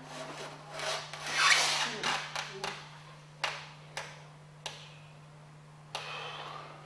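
Rubbing and scraping, loudest about a second and a half in, followed by four short sharp knocks spaced about half a second to a second apart, over a steady low hum.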